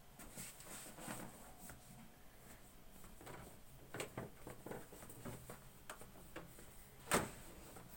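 Hands massaging a person's leg: faint, irregular rubbing and rustling, with one louder brief sound about seven seconds in.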